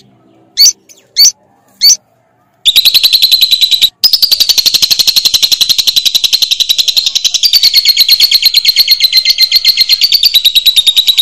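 Lovebird giving its 'ngekek' call. Three short chirps come first, then a long, fast, high trill of rapid-fire repeated notes starts about two and a half seconds in and runs on with one brief break. This is the long ngekek that keepers play to set other lovebirds singing.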